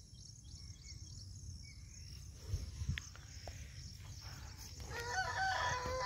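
A rooster crowing once, starting about five seconds in with a long held call, over a steady high insect drone.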